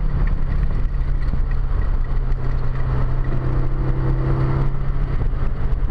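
Renault 5 Turbo 2's turbocharged four-cylinder engine running hard at speed, heard from inside the cabin as a steady engine drone over heavy wind and road noise. A higher engine tone joins about three seconds in and drops away about a second before the end.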